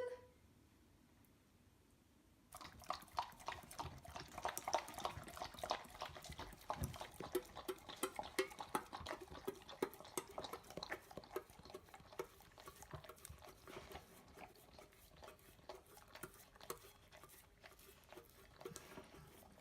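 A dog lapping liquid from a bowl: a quick run of wet clicking laps that starts about two and a half seconds in and keeps going.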